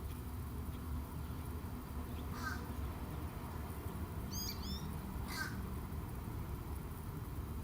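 A crow cawing twice, about three seconds apart, with a few quick high chirps of a small bird between the caws, over a steady low background rumble.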